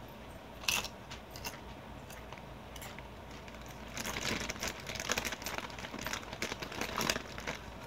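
A Doritos tortilla chip being eaten: one sharp crunch of the bite about a second in, then a run of crackly crunching as it is chewed near the end.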